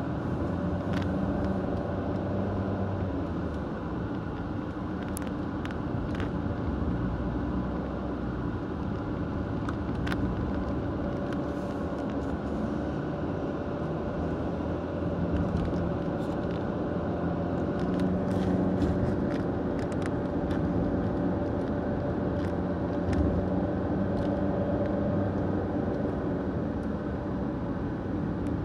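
Car driving, heard from inside the cabin: a steady rumble of engine and road noise, with a few faint clicks here and there.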